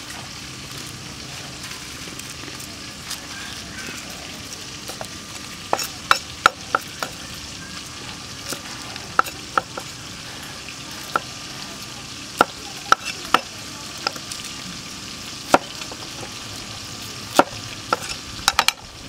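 A cleaver chopping shallots on a thick round wooden chopping block: irregular sharp knocks, a few at a time, starting about six seconds in, over a steady background hiss.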